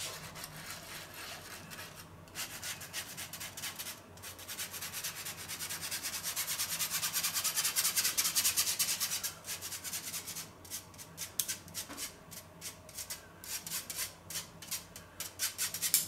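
Metal spoon scraping powdered sugar through a stainless-steel fine-mesh sieve in rapid rubbing strokes. The strokes run fastest and loudest around the middle, then thin out into separate scrapes.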